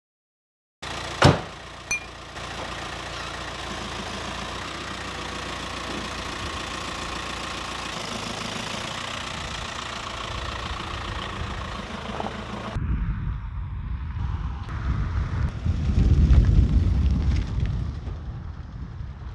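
A van door shuts with a sharp bang, then a VW Caddy's newly fitted 1.9 TDI diesel engine runs steadily. About thirteen seconds in it changes to the van driving off up a lane, with a heavy rumble of wind on the microphone.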